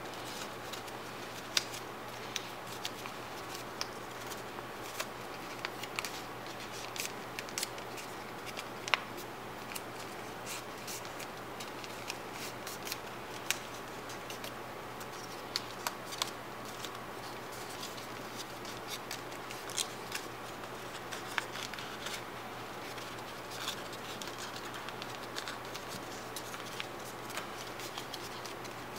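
Folded paper being handled and creased by hand: scattered light crinkles and clicks over a steady hiss.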